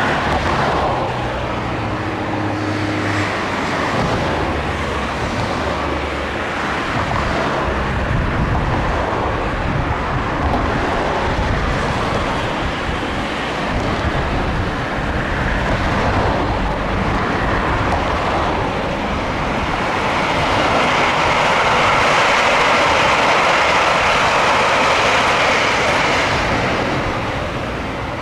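JR Hokkaido 789 series 0 electric train running on the line, a steady rumble and rush of rail noise that grows louder about twenty seconds in and eases near the end.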